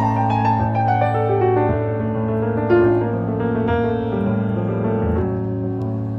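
Background piano music, notes changing every fraction of a second over a steady low hum.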